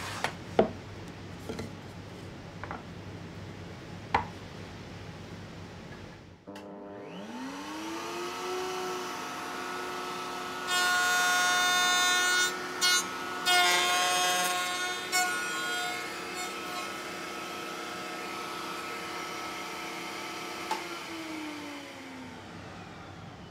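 A few light knocks, then an electric woodworking machine is switched on: its motor whine rises as it spins up and settles to a steady pitch. It makes a few seconds of loud cutting into wood, runs on steadily, and starts to wind down near the end.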